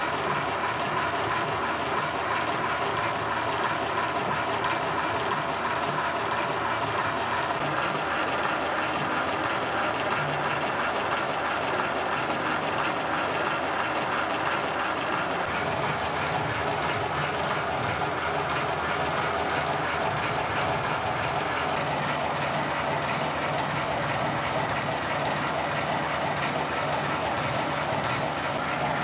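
Universal milling machine with a homebuilt hobbing attachment running, the hob cutting spur gear teeth: a steady, unbroken machining noise.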